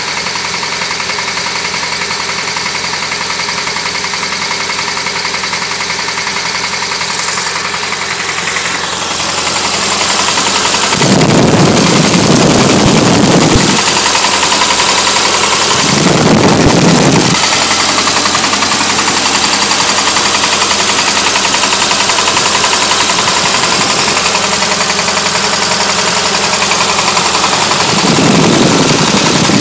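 Volkswagen 1600cc engine running with a rod knock, the sign of a damaged connecting-rod bearing after the engine overheated. It gets louder about ten seconds in and surges three times, at about eleven and sixteen seconds and again near the end.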